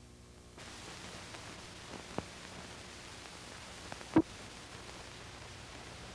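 Hiss and low hum of an old film soundtrack while the countdown leader runs. It grows a little louder just after the start, and two short pops come about two seconds apart, the second much louder.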